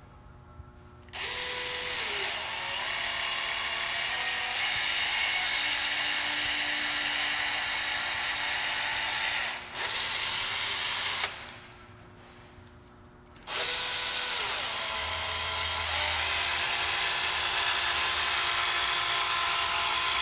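Cordless electric caulking gun's motor whirring steadily as it drives the plunger, pushing out a bead of urethane windshield adhesive. It starts about a second in, stops for about two seconds a little past the middle, then runs again.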